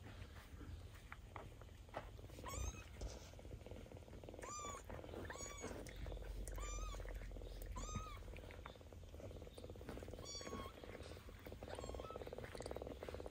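A kitten gives about seven short, high mews, each rising then falling in pitch, over a steady cat purr.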